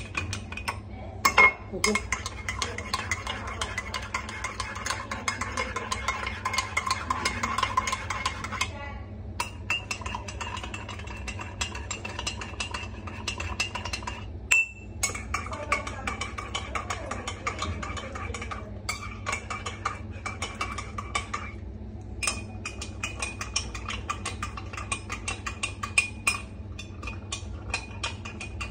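A spoon stirring quickly in small drinking glasses and a ceramic mug, clinking continuously against the sides with a light ringing, broken by short pauses as it moves from cup to cup.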